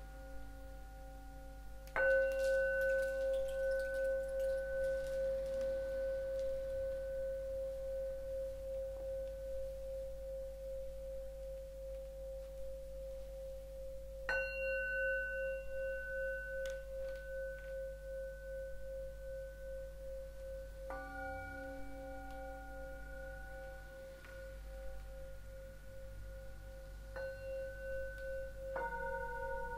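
Singing bowls struck one after another, five strikes in all, the first the loudest. Each rings on for many seconds in a clear, long-sustained tone with a slow pulsing wobble.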